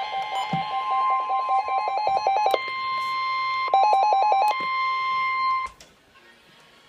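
Emergency alert attention tone: a steady single tone near 1 kHz, the warning alarm tone that announces a weather warning, with rapid beeping layered over it in two runs. The tone cuts off suddenly about six seconds in.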